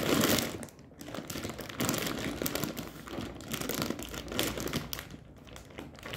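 Plastic bag of dry penne rigate crinkling as it is gripped and turned in the hands, with a brief lull about a second in.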